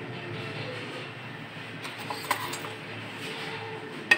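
A spoon scraping the last of the melted ice cream out of its tub into a glass bowl, with a few faint knocks and one sharp tap near the end.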